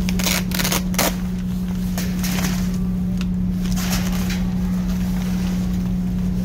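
A fabric wet-tissue case being handled: its flap is opened and the tissue pack pulled out, giving short scratchy rustles, several in the first second and a few more later, over a steady low hum.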